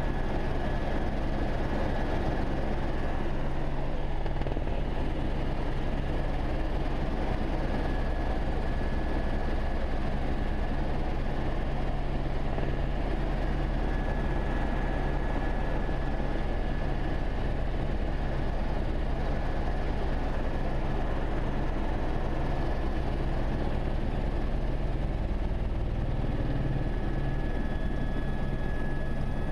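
Eurocopter Écureuil turbine helicopter in cruise, heard from inside the cockpit: a steady low rotor and engine drone with a thin high turbine whine over it.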